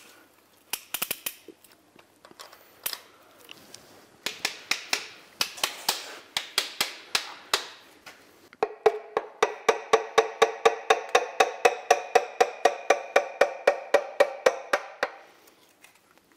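Background music: a dry, woodblock-like percussive beat, joined about halfway by a held synth chord that pulses quickly and evenly, then stops shortly before the end.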